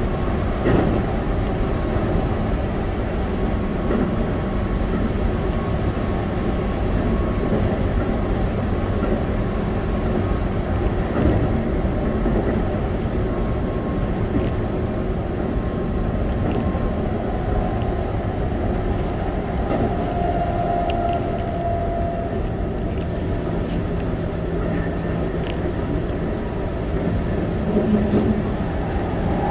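Keihan 8000 series electric train running at speed, heard from inside the passenger car: a steady rumble of wheels on rail with occasional short clicks, and a brief whine about two-thirds of the way through.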